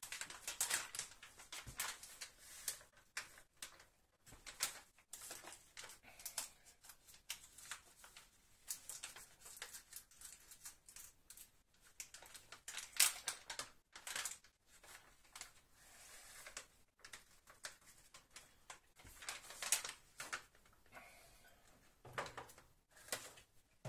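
Plastic bag of grated Grana Padano cheese crinkling and rustling in the hands as it is opened and handled, with irregular crackles and a few louder ones about 13 and 20 seconds in.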